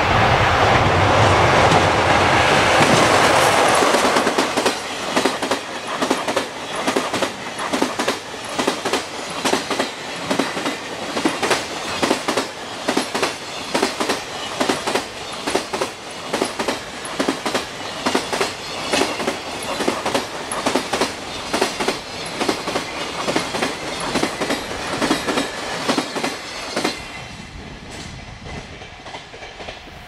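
Freight train of container wagons passing at speed over jointed rail. A loud rush as the locomotive goes by for the first few seconds gives way to a rapid, rhythmic clickety-clack of wheels striking the rail joints. The clatter stops near the end as the last wagon clears.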